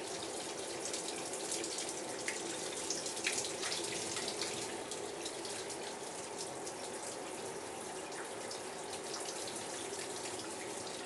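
Shower water spraying steadily down into a bathtub and onto a wet cat standing under it, an even hiss with small scattered splashes.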